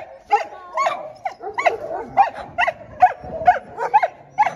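Several shelter dogs barking and yipping in a rapid run, about three short barks a second, some overlapping.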